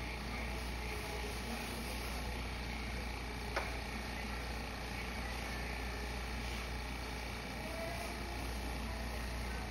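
Steady workshop background noise: an even hiss over a constant low rumble, with one sharp click about three and a half seconds in.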